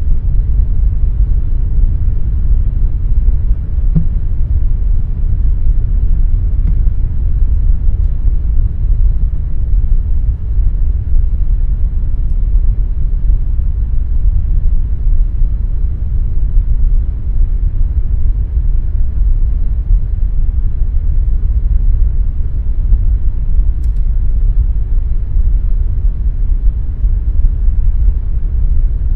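Air conditioner running with a steady deep rumble, its noise heaviest in the bass with little hiss up top.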